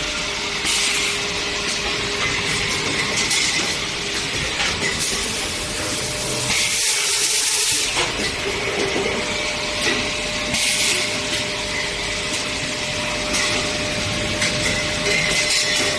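Stainless steel tube production machinery running: a steady mechanical noise with a faint steady tone, broken by repeated bursts of hiss every few seconds. The longest and strongest hiss comes about halfway through.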